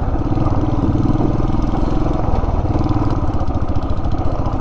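Motorcycle engine running steadily at low speed while the bike is ridden along a gravel dirt track.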